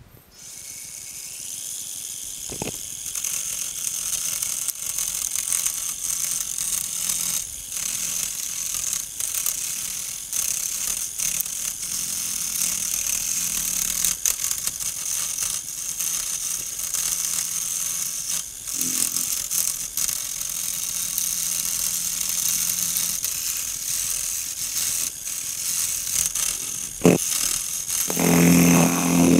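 Craftsman wood lathe starting up about half a second in, then a carbide turning tool cutting a spinning wooden spindle: a steady hiss of wood being shaved, with a few knocks and a louder, heavier cut near the end.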